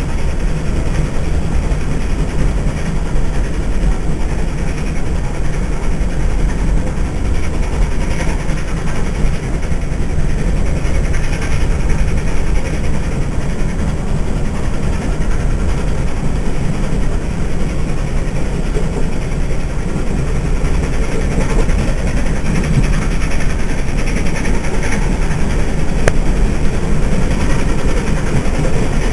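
A steam-hauled passenger train heard from inside a carriage, running steadily at speed: a continuous low rumble of wheels on the rails and carriage noise.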